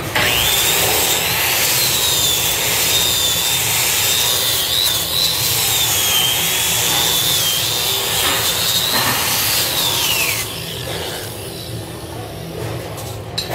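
Electric angle grinder with a wire wheel brushing the flux-core weld on a steel column splice, its motor whining at a high pitch that wavers as it is pressed against the steel, typical of cleaning slag off the weld. About ten seconds in it is switched off and spins down with a falling whine.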